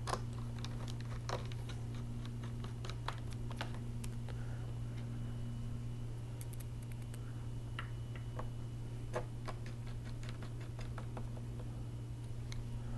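Irregular small clicks and ticks of a small screwdriver driving screws back into a laptop's plastic screen bezel, over a steady low hum.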